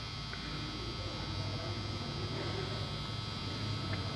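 Steady low electrical hum and buzz with a constant hiss over it.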